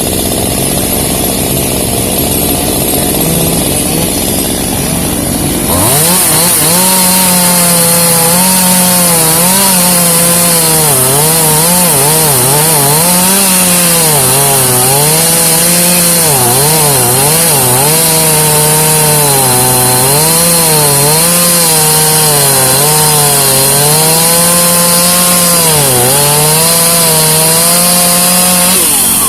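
Two-stroke chainsaw running hard, cutting wood. About six seconds in it opens up to a higher, louder note, and the engine pitch keeps dipping and recovering as the chain bites into the cut and is eased back.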